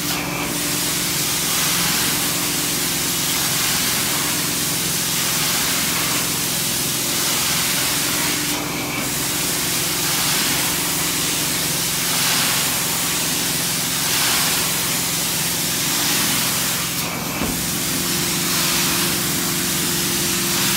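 Hot-water extraction wand of a 370ss truckmount carpet-cleaning system spraying onto carpet and vacuuming it back up. A loud, steady hiss runs over a steady hum and is briefly broken three times, about eight seconds apart.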